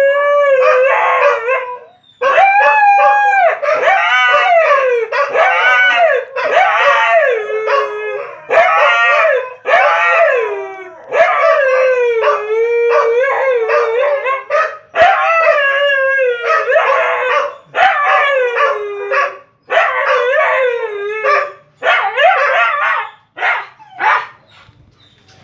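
Siberian husky howling in a long run of calls, each a second or two long, rising and falling in pitch. The calls stop shortly before the end.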